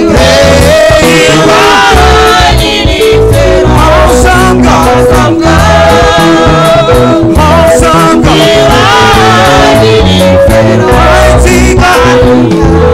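Live gospel praise music, loud: voices singing a melody over a band with bass and a steady drum beat.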